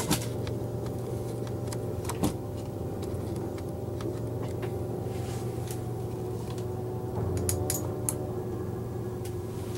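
A steady low mechanical hum, with scattered light clicks and knocks as equipment is handled: a knock a little after two seconds and a small cluster of clicks near eight seconds.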